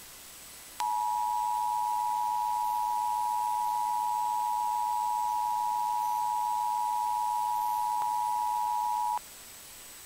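Emergency Alert System attention signal: two steady sine tones near 1 kHz (the 853 and 960 Hz EAS pair) sounding together. It starts about a second in and cuts off suddenly about a second before the end, lasting about eight seconds, and marks a Required Monthly Test.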